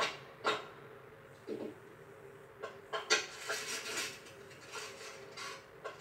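Animated-film sound effects, without music or dialogue, played through a TV's speakers: sharp clicks and knocks at the start and about half a second in, then a busier patch of small clicks and clatter from about three seconds in.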